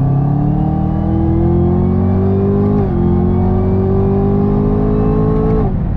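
Supercharged 6.2-litre V8 of a 2019 Camaro ZL1 under full throttle, heard from inside the cabin. The engine note climbs steadily, drops at an upshift from third to fourth about three seconds in, climbs again, and drops at a second upshift near the end.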